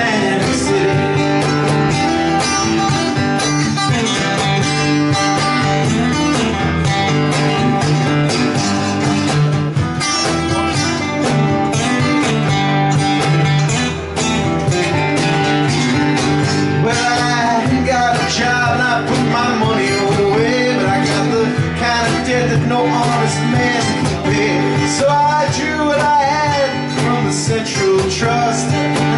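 Live acoustic music: acoustic guitars playing over a steady beat on a Croaker Cajons Studio String Cajon, an instrumental stretch between sung lines.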